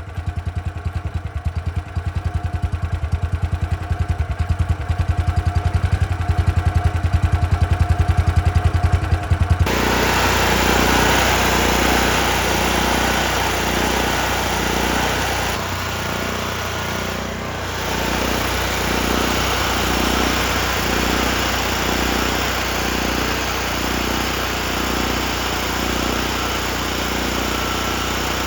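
Carbureted gasoline engine of an engine-drive welder running, first at low idle with distinct, evenly spaced firing beats, then about ten seconds in stepping up suddenly to high speed and running louder with a slow regular pulsing. The low idle is not right, which the owner puts down to either the governor or the carb.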